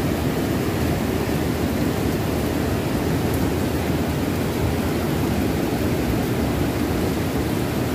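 Steady rush of a fast-flowing small river running over rocks, its current swollen by heavy rain.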